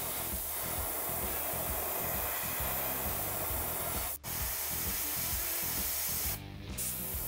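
Iwata Eclipse airbrush spraying black paint with a steady hiss of air, cutting out briefly about four seconds in and again near the end. Background music runs underneath.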